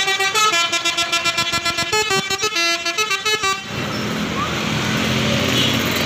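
Pesona Jaya tour bus's basuri telolet horn playing a quick multi-note tune, its notes stepping up and down and pulsing rapidly. It cuts off about three and a half seconds in, leaving a steady wash of engine and street noise.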